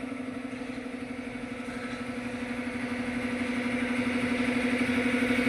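A motor running steadily with a fast, even pulse, growing slowly louder.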